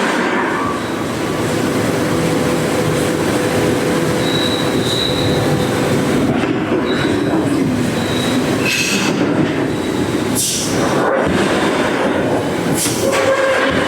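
Heavy mechanical metalworking machinery running continuously, a loud dense clatter and grinding of metal with faint squealing tones. A few brief hissing bursts come in the last few seconds.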